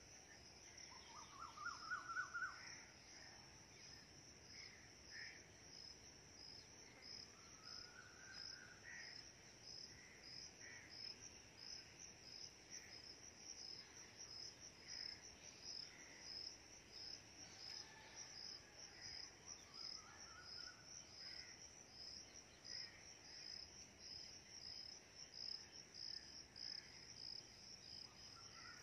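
Faint outdoor ambience: insects pulse steadily at a high pitch, about two pulses a second, and birds give scattered short calls. The loudest is a rising series of chirps about two seconds in.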